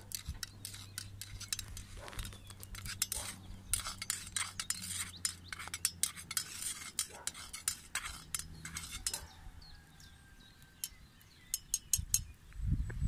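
A metal spoon stirring a hot drink in a metal camping mug, clinking quickly and repeatedly against the inside for about nine seconds, then a few more clinks near the end.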